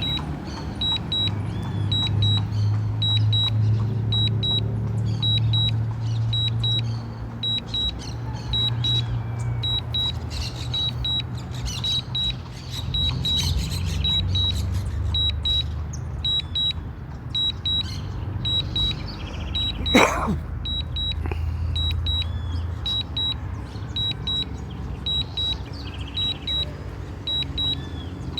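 Drone remote controller beeping in short high pairs about once a second, the warning that accompanies a return-to-home after signal loss, over a steady low rumble. About twenty seconds in, a single sharp sound sweeps quickly down in pitch.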